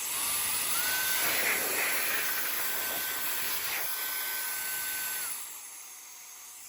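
Cordless electric air duster's brushless turbo fan running: a rushing hiss of air with a high steady whine that rises in pitch as it spins up. About five seconds in, the whine falls and the airflow drops to a fainter hiss as it winds down.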